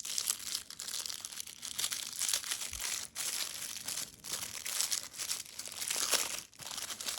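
Paper wrapping of a small pack of firecrackers crinkling and tearing as it is opened by hand. The crackling comes in bursts, with brief pauses about three seconds and six and a half seconds in.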